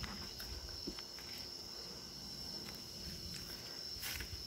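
Insects trilling outdoors, one steady high-pitched note that never breaks, with faint rustles and light knocks from the phone being handled.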